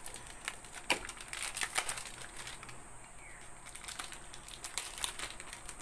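Crinkling and a rapid scatter of small clicks and taps as things are handled at close range.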